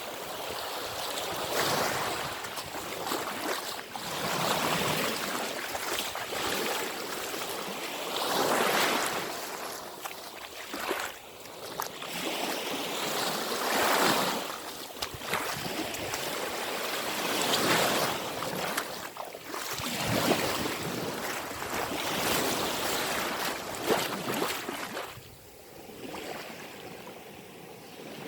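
Small sea waves washing onto the shore, each one swelling and falling away every few seconds, quieter near the end.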